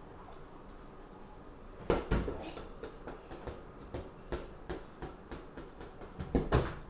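A ball thumping on the floor in uneven knocks and bounces, starting about two seconds in and loudest near the end.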